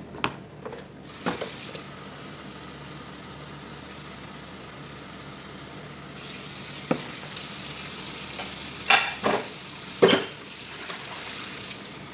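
Kitchen tap running into a sink full of dishes, a steady hiss that gets stronger about halfway through, with a few sharp clinks and knocks of dishes and pots being handled, the loudest near the end.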